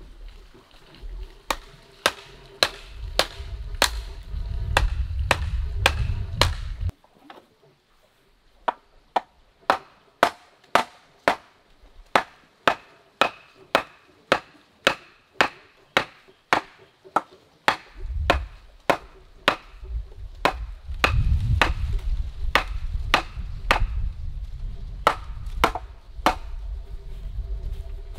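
Bamboo stake being pounded into the ground with a heavy bamboo pole: sharp wooden knocks repeated steadily, a little under two a second.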